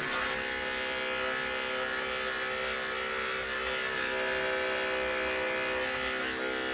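Corded electric dog clipper with a number 10 blade buzzing steadily as it shaves the hair on a dog's belly and groin against the grain. It starts right at the beginning and holds an even hum.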